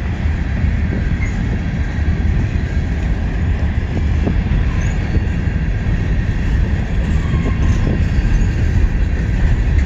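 Slow freight train of loaded grain cars rolling past: a steady rumble of wheels on rail, with a few light knocks from the running gear.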